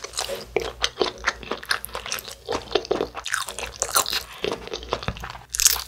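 Close-miked chewing of a Jjapaghetti noodle wrap: a quick, dense run of small mouth clicks and crunches, with a louder burst near the end.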